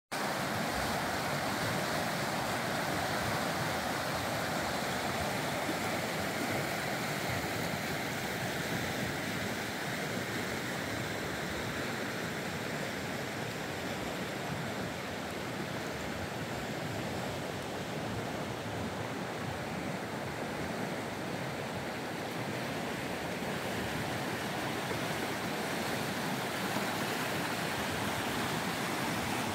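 Fast river rushing over rocky rapids: a steady wash of running water, a little fainter for a while in the middle.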